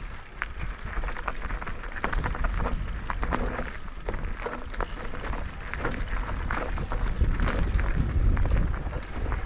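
Mountain bike riding over a rough, stony trail: tyres on loose rock with an irregular stream of knocks and rattles from the bike, over a low rumble that swells near the end.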